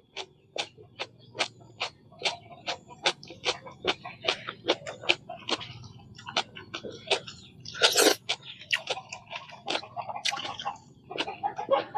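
Close-miked crunching and chewing of raw vegetables, a quick irregular run of crisp crunches with one louder crunch about eight seconds in.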